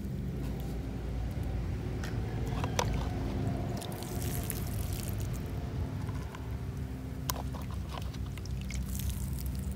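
Water showering in several thin streams onto the soil and mulch around a newly planted corn seedling, a steady pour.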